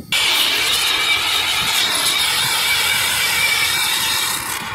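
Hand-held hose-fed gas torch burning with a steady, loud rush of flame, heating the inside of a rigid ABS pipe end to soften it. The flame starts abruptly and dips briefly near the end.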